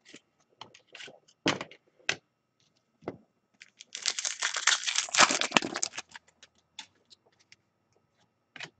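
Trading cards handled with scattered light clicks and flicks, then, about four seconds in, a hockey card pack's wrapper torn open and crinkled for about two seconds.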